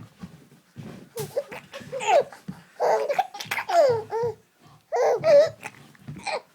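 Baby laughing in a string of short, high-pitched bursts, with babbling between them.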